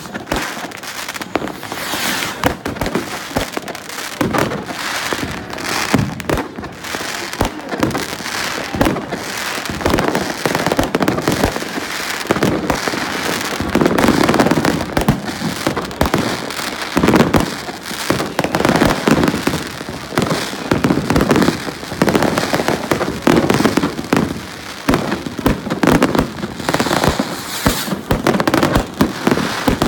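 Many fireworks going off at once in an unbroken barrage of bangs, pops and crackling.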